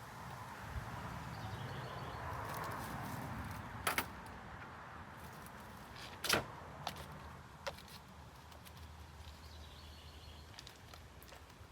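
A few sharp clicks and taps from hand work on a window screen frame, the loudest about four and six and a half seconds in, over a low wind rumble that fades after the first few seconds.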